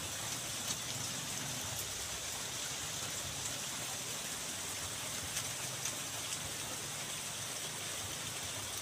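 Steady rain falling on grass and leaves: an even hiss with a few single drops ticking now and then.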